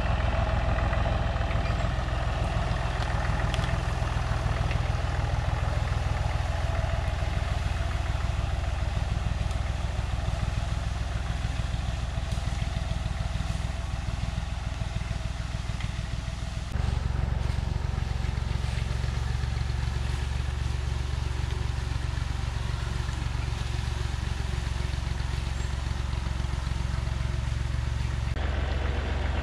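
Small vintage farm tractor engine running steadily under load while skidding cedar logs. The engine note shifts abruptly twice, about halfway through and near the end.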